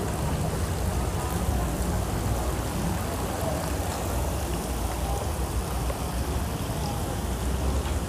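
Steady outdoor ambience by a busy pool: a continuous rush of noise with a strong low rumble, like wind buffeting the microphone, and faint distant chatter of people.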